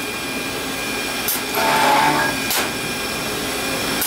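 Pipe-drilling machine boring the tobacco chamber into corn cob pipe bowls, over a steady machine hum. About a second in there is a sharp click, then about a second of louder whining drilling, then another click.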